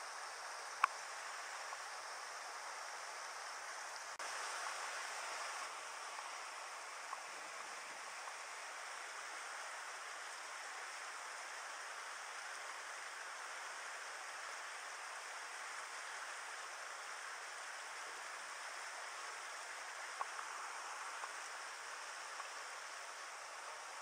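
Mountain river water rushing over rocks and riffles, a steady hiss of flowing current. A sharp click about a second in and a couple of fainter ticks later.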